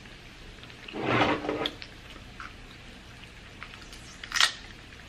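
Close-miked eating sounds: a wet mouth sound lasting about half a second, about a second in, then a single sharp smack a little past four seconds, with faint clicks between.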